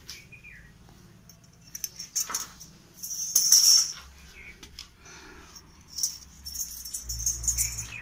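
Metal hand tools clinking and jangling in a few short bursts, the loudest about three and a half seconds in and another run near the end, with scattered clicks between.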